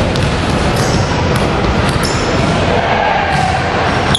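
A basketball bouncing a few times on a wooden gym floor, echoing in a large hall, over a steady hiss and indistinct voices.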